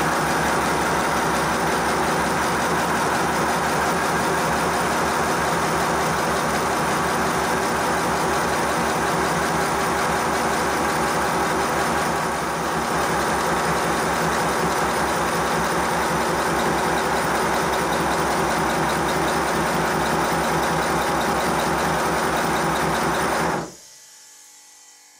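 5-inch gauge model GWR pannier tank locomotive running smoothly on compressed air on a rolling road: the mechanical noise of its motion and wheels, a fast even beat, amplified by the wooden worktop under it. It stops suddenly about a second and a half before the end.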